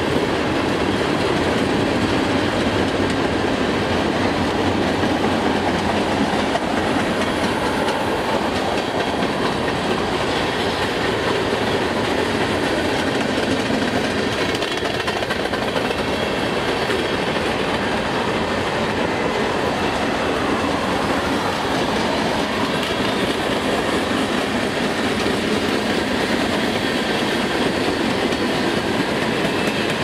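Empty covered grain hopper cars of a freight train rolling past: a steady rumble of steel wheels on rail, with fine rapid clicking from the wheels over the track.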